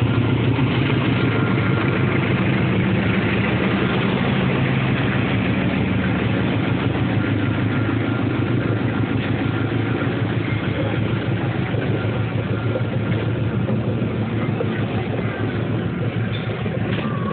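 Diesel-electric locomotive engine running with a steady low hum, fading gradually toward the end.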